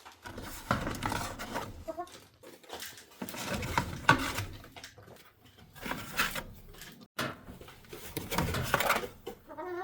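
Hens clucking and squawking in short irregular bursts inside a chicken coop, with rustling between the calls.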